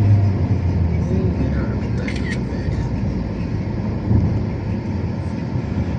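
A moving vehicle's steady low engine and road rumble, with a couple of faint brief high squeaks about two seconds in.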